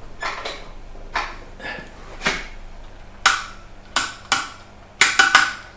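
A run of sharp, irregular metallic clicks and clunks, about nine in all, several clustered near the end, with no motor running up: the machine has not started after its power switch was hit.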